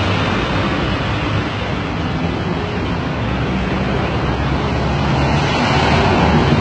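Street traffic noise, with a vehicle engine running steadily under a constant rush of road noise.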